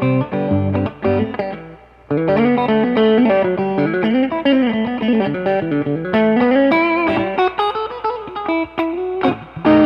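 Electric guitar, a Reverend Pete Anderson PA-1, played through a Mesa Boogie 5:25 Express 1x10 combo amp: a few chords, a short break about two seconds in, then a single-note melodic line with notes that bend and slide in pitch, and short choppy chords near the end.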